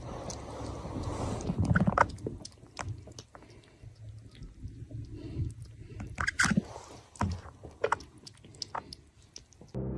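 Kitten lapping water from a glass bowl: a run of small, irregular wet clicks, with a louder rustle in the first two seconds.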